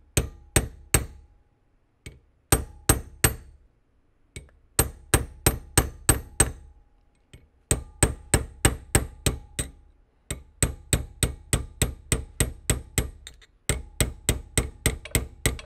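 Hammer striking a steel punch to cold-bend a steel bar clamped in a vise. The blows come in runs of about four a second with short pauses between, each with a short metallic ring.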